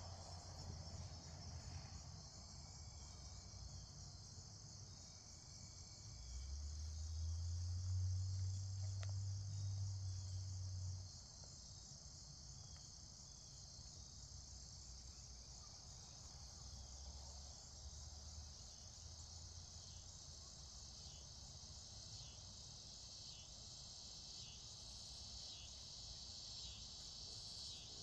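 Crickets trilling steadily in a high, continuous chorus. A low rumble rises about six seconds in and fades out about five seconds later.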